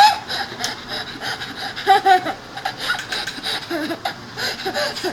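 A young child laughing in short, high-pitched bursts, loudest at the start and again about two seconds in.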